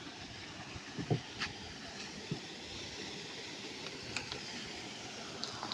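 Steady rush of a rainforest stream flowing, with a few scattered knocks and clicks on top.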